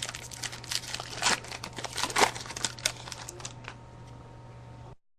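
Trading cards and a foil pack wrapper being handled: a quick run of crinkles, rustles and small snaps over a steady low hum. Everything cuts off abruptly near the end.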